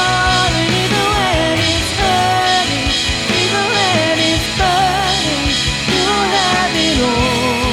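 Worship band music in a rock style, with drums under a held, wavering melody line.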